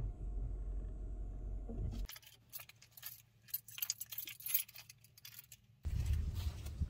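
Steady low rumble inside a car's cabin. About two seconds in it gives way to a few seconds of sparse, irregular light ticks and clinks. Near the end it switches to a louder low outdoor rumble.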